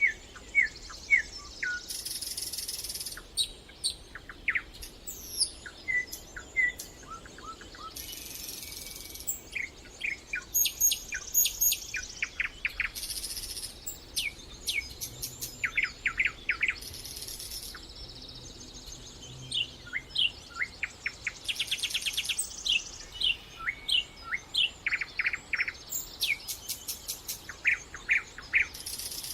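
Several songbirds singing and calling at once: many short, sweeping chirps and fast trills overlapping throughout.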